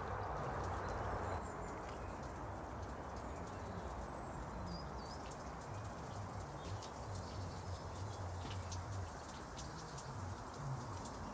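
Light rain pattering, scattered drop ticks over a steady low background noise, with a small bird chirping briefly about five seconds in.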